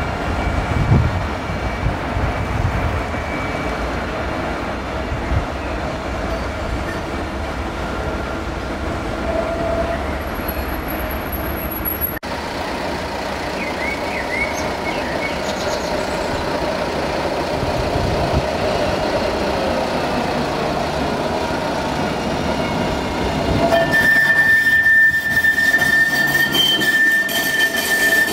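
Alstom Citadis trams on street track: first a tram moving away from a stop with low rumble and running noise, then a second tram passing close by, its wheels giving a loud, steady high squeal over the last few seconds.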